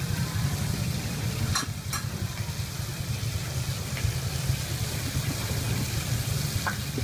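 Steady low background rumble with a hiss over it, and a few light clicks and taps as spring onions are handled and cut with a knife on a wooden chopping board.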